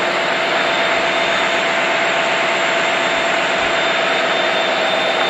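Steady, loud rushing noise with a faint held tone running through it, unchanging throughout.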